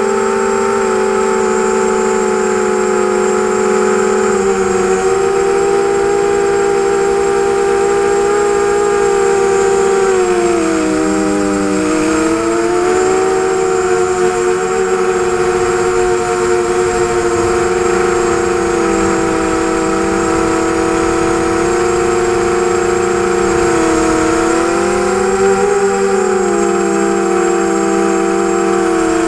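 ZMR250 quadcopter's four brushless motors and propellers whining, heard from the onboard camera as several close tones. The pitch dips and climbs back twice, about a third of the way in and again near the end, as the throttle is eased and opened.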